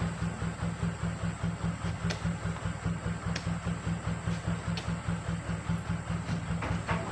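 Truck engine idling with an even low pulsing, with a few sharp knocks over it.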